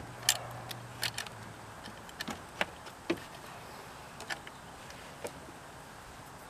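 Irregular light clicks and taps of wire leads and plastic plug connectors being handled and fitted inside an open generator's frame.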